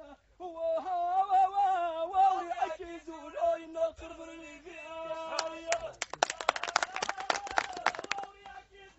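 A man sings a line of metered Amazigh verse solo, in long wavering held notes. About six seconds in, a group of men breaks into quick clapping for about two seconds while his voice holds a note.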